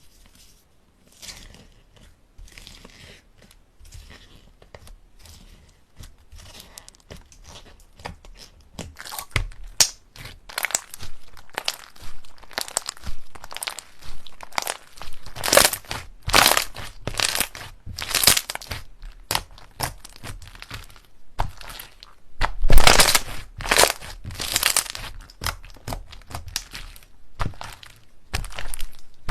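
Slime being squeezed and kneaded by hand, giving a rapid run of crackling, crunching pops. It starts faint and grows much louder after about nine seconds.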